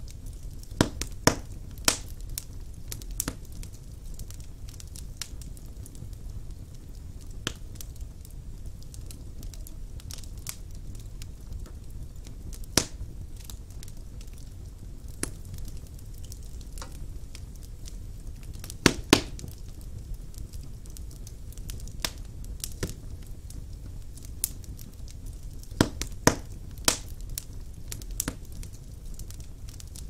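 Wood logs burning in a fireplace: a low steady rumble of flames with irregular sharp crackles and pops. A cluster of loud pops comes near the start, a close pair just before two-thirds through, and another cluster near the end.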